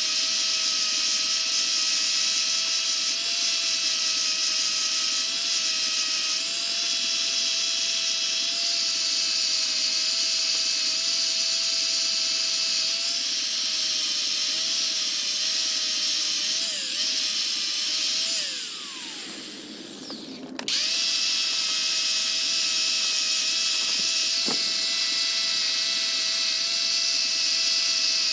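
An electric power tool running steadily with a high whine. About two-thirds of the way through it winds down, its pitch falling, then starts again abruptly about two seconds later and runs on.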